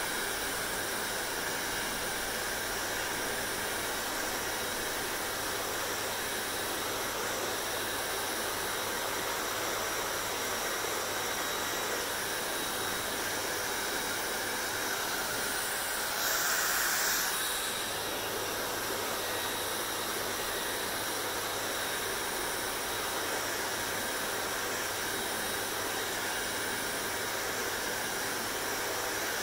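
Hair dryer running steadily, blowing air with a faint motor hum and whine. It briefly grows a little louder and brighter a little past halfway, then settles back.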